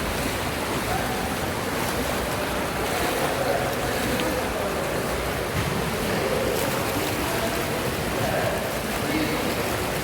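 Hydromassage pool jets churning the water, a steady bubbling rush.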